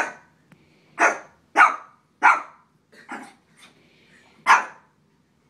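A small shih tzu barking, about seven short sharp barks spaced unevenly; the one about three seconds in and the one just after it are softer than the others.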